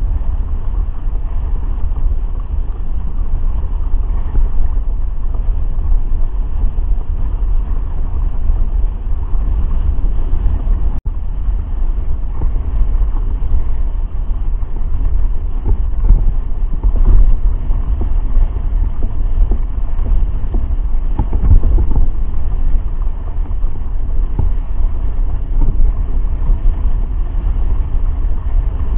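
Steady rumbling wind buffeting the microphone of a hydrofoil board at speed, with the rush of the foil mast slicing the water and throwing spray. A few louder surges come past the middle.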